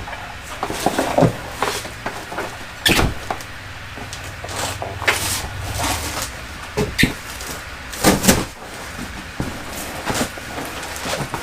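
Packaging being pulled and handled off a new electric water heater: rustling and scattered knocks, with two louder thumps about three seconds and eight seconds in.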